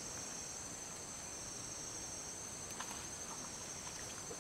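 Steady high-pitched insect chorus, with a few faint clicks about three seconds in as hands handle the fishing line and grass.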